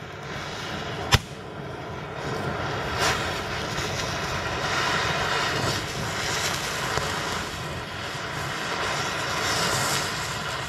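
Cutting torch blowing steadily as it cuts through the bearing on a Jeep Wrangler axle shaft, with a single sharp pop about a second in.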